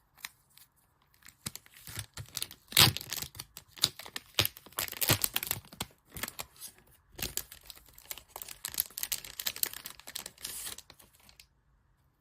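Packaging being torn open and crinkled by hand: a run of irregular rustles and sharp crackles, loudest about three seconds in, stopping shortly before the end.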